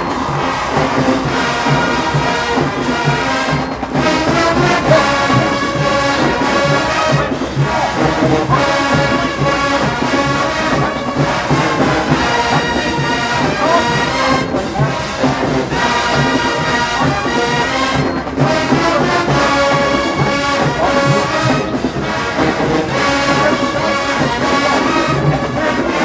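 Marching band playing loudly: trumpets and trombones carrying the tune over a steady beat.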